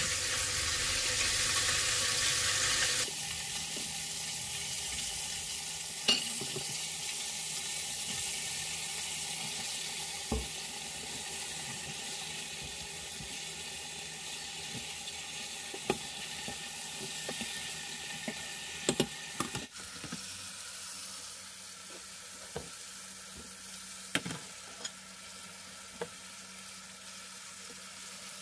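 Breaded chicken wings frying in hot oil: a steady sizzle that drops in level about three seconds in and then slowly fades. A few sharp clicks stand out over it.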